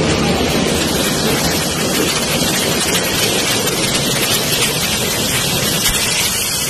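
LPG gas cylinders burning after a fire, with gas jetting out and burning in a steady, loud hiss and no separate blasts.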